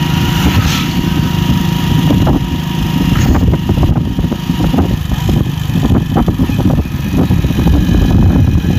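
Engine of a moving vehicle running steadily at road speed, under a loud, steady low rumble of road and wind noise.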